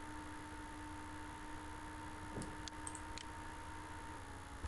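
A few faint computer mouse clicks, clustered around the middle, over steady recording hiss and a faint electrical hum.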